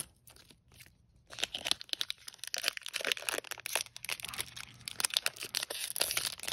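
Foil wrapper of a Pokémon trading-card booster pack crinkling and tearing as it is pulled open and the cards slid out. A dense crackle starts about a second and a half in, after a quiet start.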